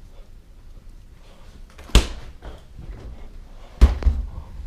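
Two sharp knocks about two seconds apart, the second followed by a couple of lighter thumps.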